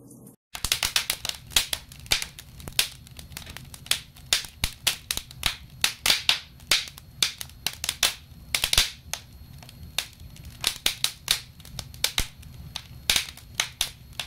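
Wood fire burning in a fireplace, crackling with many sharp pops of varying loudness, several a second, over a low steady rumble. It starts abruptly about half a second in.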